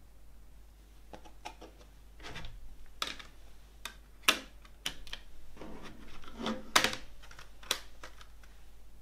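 Plastic CD jewel case being handled as a disc is pressed back onto its centre hub, making a string of sharp plastic clicks and knocks with rustling between them. The loudest clicks come about four seconds in and again near seven seconds.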